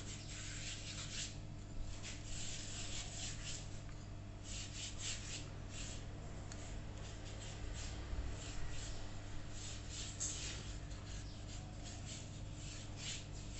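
A bare palm rubbing oil across a thin sheet of raw bread dough: soft swishing strokes in short runs with brief pauses, over a steady low hum.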